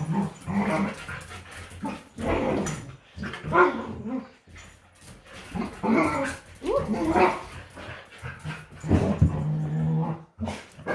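Dogs playing together, growling in play with short barks and whines in irregular bursts.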